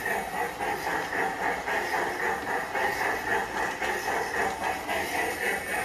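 PIKO G-scale model train running along its track: a steady mechanical running sound whose loudness pulses several times a second.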